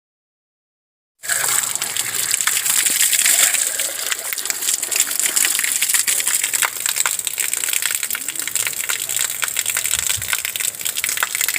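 Water gushing and splashing: a loud, steady rush full of small crackling splashes, starting abruptly about a second in.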